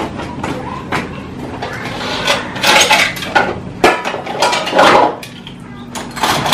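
Plates and bowls clattering and clinking as they are stacked and set down on a wooden shelf, in a run of sharp knocks with a few louder clashes.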